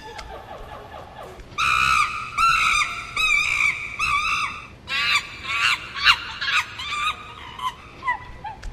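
A quick run of short, high-pitched animal calls whose pitch bends on each call, coming thick from about a second and a half in and thinning out near the end.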